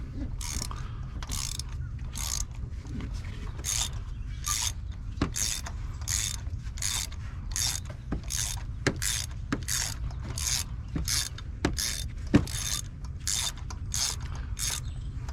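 Socket ratchet wrench clicking in a steady run, about two clicks a second, while loosening a spark plug.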